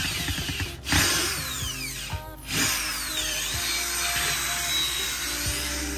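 Handheld cordless power scrubber whirring as its spinning brush scrubs wet car carpet, with background music.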